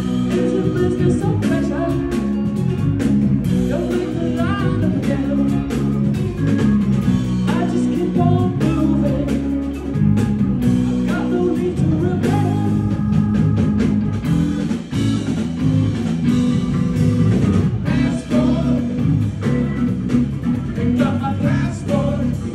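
Live band playing: drum kit, electric guitar and bass together, with a man singing.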